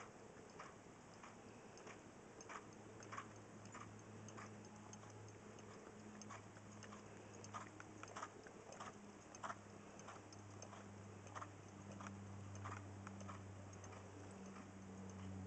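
Faint, irregular clicks of a mare's hooves and tack as she walks under saddle on an arena's sand, over a low steady hum.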